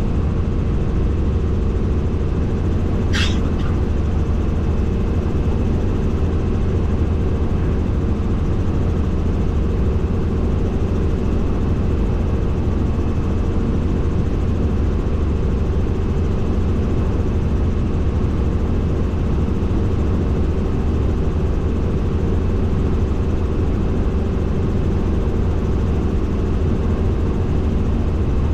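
Helicopter in flight heard from on board: a steady, loud drone of engine and rotors. A brief high-pitched squeak cuts in once, about three seconds in.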